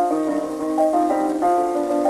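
A 1923 acoustic-era 78 rpm record of a jazz dance band playing a fox trot: reeds and brass hold several sustained melody and harmony notes over piano and banjo. The sound is thin, with little bass or treble.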